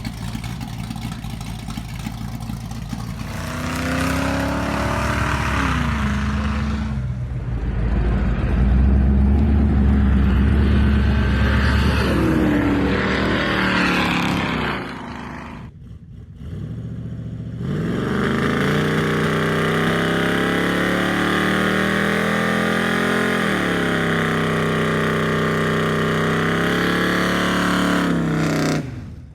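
Car engine running and being revved, its pitch rising and falling several times, with a brief drop in level partway through and a steadier run near the end before it cuts off abruptly.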